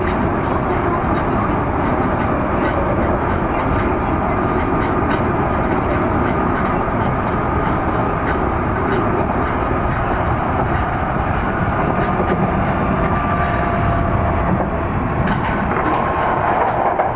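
Osaka Metro 30000 series subway train running at speed, heard from inside the car: a steady rumble of wheels on rail with light, regular rail-joint clicks. A faint thin whine from its Mitsubishi IGBT-VVVF traction equipment comes in during the second half.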